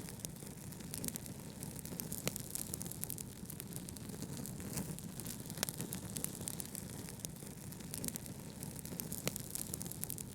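Fire crackling, with frequent small irregular pops and a few sharper ones, over a steady low rush of brown noise.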